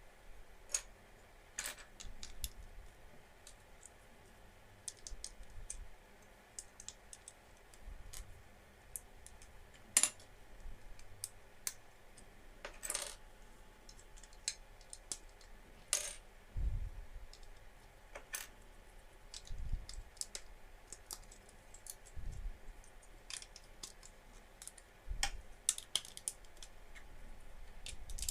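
Lego bricks being handled and pressed together: scattered light plastic clicks and taps at an uneven pace, with a few soft low thumps.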